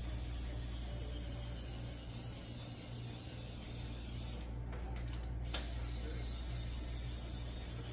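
Screwdriver working the mesh tension hooks on a Snoo bassinet's plastic frame, with a couple of faint clicks around five seconds in over a steady low hum and hiss.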